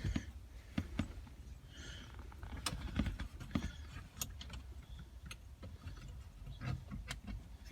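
Faint, scattered small clicks and rustles of hands working up behind a car dashboard, pushing the radio's light bulb back into its socket.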